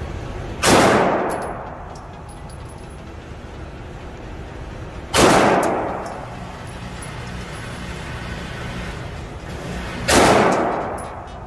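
Three handgun shots, about five seconds apart, each ringing on in the echo of an indoor range, with faint high clinks after the shots.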